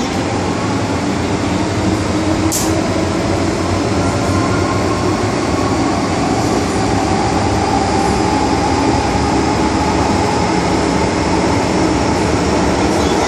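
MTR M-Train subway car running between stations, heard from inside the car: a steady rumble of wheels and running gear with a faint whine that rises slowly in pitch. A brief sharp click sounds about two and a half seconds in.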